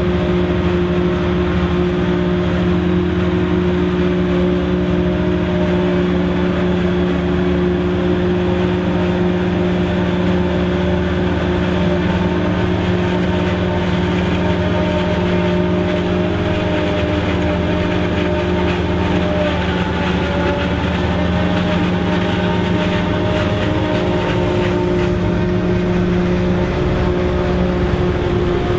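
Mercedes-Benz MB Trac 800 tractor's diesel engine working steadily under load, driving a Taarup 101 forage harvester that is chopping maize. A constant hum with a steady tone.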